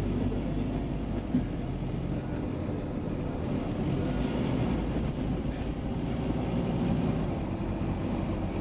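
Scania OmniCity double-decker bus's diesel engine running steadily, a low even drone, with a small knock about a second and a half in.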